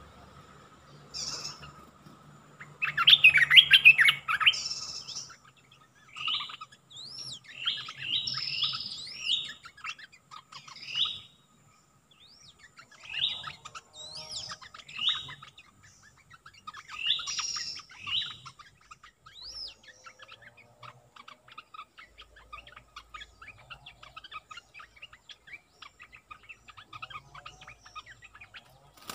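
Olive-winged bulbul song used as a lure: short, bubbly whistled phrases repeated every second or two, loudest about three seconds in. From about twenty seconds on only faint scattered chirps remain.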